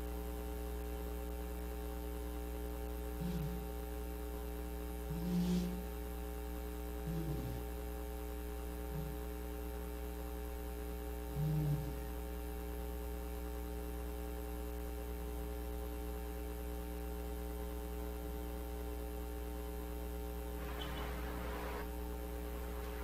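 Steady electrical mains hum, a constant low buzz with evenly spaced overtones. Several short, faint low sounds come a few seconds apart in the first half, and a brief soft hiss near the end.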